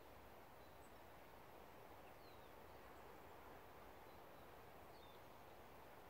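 Near silence: faint steady outdoor background hiss, with two faint high bird chirps, about two seconds in and near the end.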